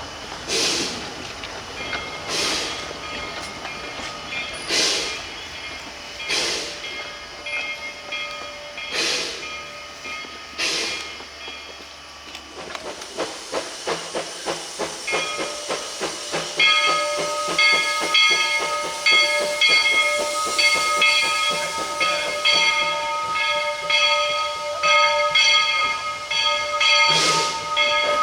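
Bridgton and Saco River #7, a two-foot-gauge steam locomotive, working its train. Slow, heavy exhaust chuffs come about every two seconds at first, then quicken after about twelve seconds. From a little past halfway a steady high squeal of several tones joins them and holds, with louder chuffs near the end.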